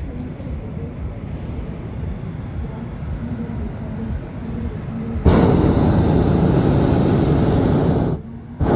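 Hot air balloon's propane burner firing: a loud rushing roar starts abruptly about five seconds in, runs about three seconds, cuts off for a moment and fires again near the end. Before it, a lower steady rumble.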